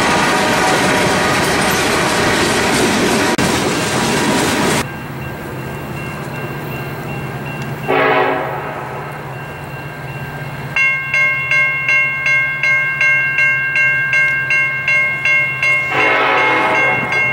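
Freight cars rumbling and clattering past until the sound cuts off about five seconds in. Then a diesel locomotive horn, on an approaching train led by an EMD SD70ACe, gives a short blast. Grade-crossing bells start ringing rapidly a few seconds later, and the horn sounds again near the end over the bells.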